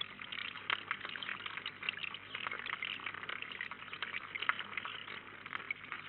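Water trickling and splashing over rocks into a small pond: a steady, crackling, bubbling flow.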